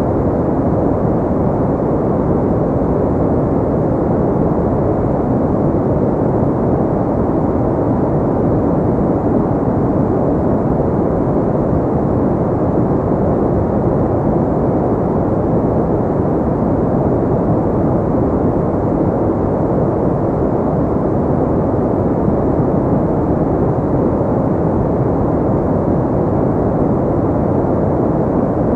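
Steady synthetic pink noise: an even, unchanging rush, deep and muffled, with little high hiss.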